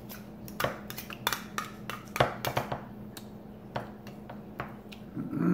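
A metal fork clinking and scraping against the inside of a tin can as tuna is scooped out, in a run of irregular clicks.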